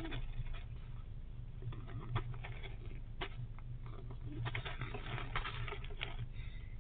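Adult male fox squirrel snoring in its sleep: bursts of fine crackling clicks, each about a second long, recurring with each breath.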